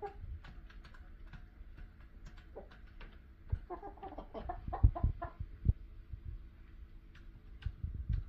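Domestic hens clucking softly in short calls, mostly in the middle stretch, with light tapping throughout. A few low thumps, the loudest about five seconds in.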